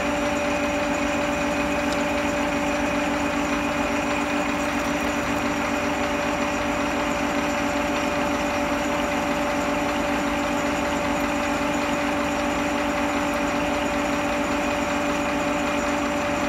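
Holbrook metal lathe running steadily while turning a cold-rolled steel shaft, its tool taking a cut with swarf coming off. The sound is a constant machine hum carrying several steady tones.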